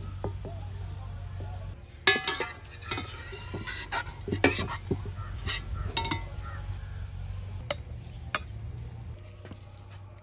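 Cooking utensils stirring and clinking against pots and bowls: a run of separate clinks and scrapes over a steady low hum.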